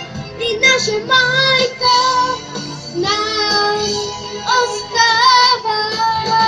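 A boy singing a pop ballad over a backing track, holding long notes with vibrato.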